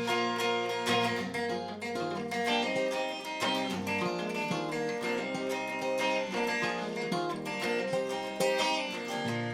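Instrumental break of a folk-style song: strummed acoustic guitar with picked notes above it and a bass line.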